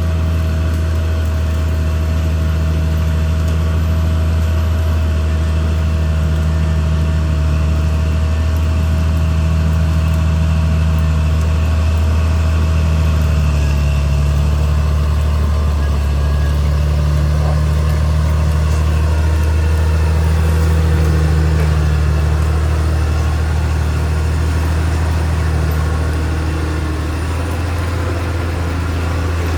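Caterpillar D6R XL bulldozer's diesel engine running with a steady low drone.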